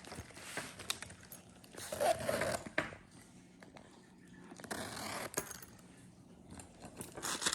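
Handling noise from a waxed-canvas tool pouch: irregular rustles and scrapes with scattered small clicks, in two louder stretches about two seconds in and around five seconds.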